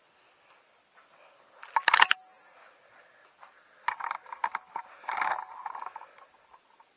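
Handling noises from work on a bicycle: a loud sharp metallic clank about two seconds in, with a brief ring, then a couple of seconds of light irregular clattering and scraping.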